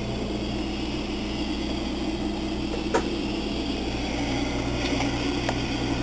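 Drinking fountain running with its stream spraying past the basin: a steady low hum under a soft hiss of water, and a single click about three seconds in.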